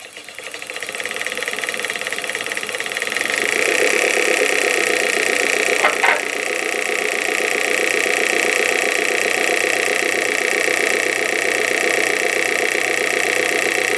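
A distributor test bench's electric motor spins a rebuilt Ford Model A distributor, with a fast, even ticking as it fires. It comes up to speed over the first few seconds and then runs steadily, with a brief click about six seconds in. The bench is checking that the distributor fires at even 90-degree intervals and is not shorted out.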